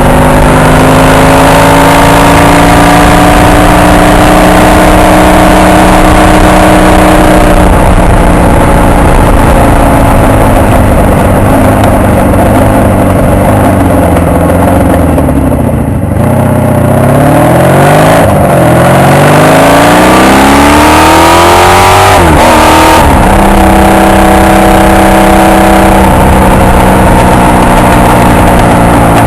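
Honda VF750 motorcycle's V4 engine under way: its pitch falls as the bike slows, with a brief drop in level about halfway through, then climbs in steps as it accelerates through the gears and settles to a steady cruise for the last several seconds.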